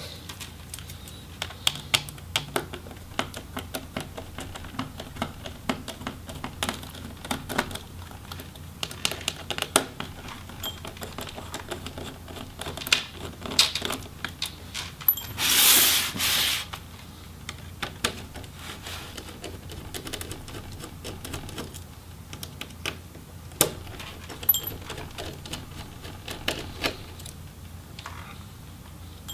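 Small, irregular clicks and ticks of a Phillips screwdriver working the hinge screws out of a laptop's plastic palm-rest frame, with light clatter of the parts being handled. About halfway through there is one louder scrape lasting about a second.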